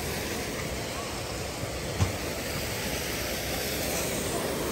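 Steady rushing of water from a small artificial rock waterfall spilling into a pond, with a single brief low thump about two seconds in.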